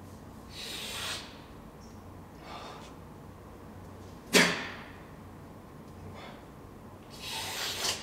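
Short breathy hisses, and one sharp, loud sneeze about halfway through.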